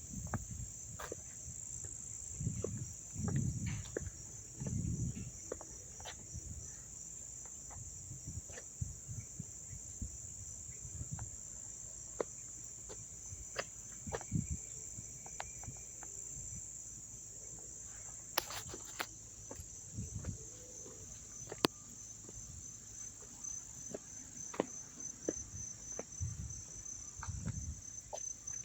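Crickets chirping in a continuous high-pitched chorus, with the pulses of the trill becoming distinct near the end. Occasional clicks and low rumbles sound behind it.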